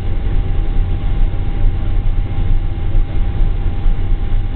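Steady cabin rumble of a Boeing 747-400 with its four Rolls-Royce RB211-524G engines running, heard inside the cabin. Over the deep drone sits a steady thin whine.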